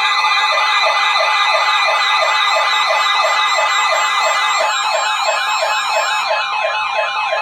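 Electronic siren in a fast yelp, rising and falling about three times a second, layered over steady alert tones. One of the steady tones drops out about halfway through.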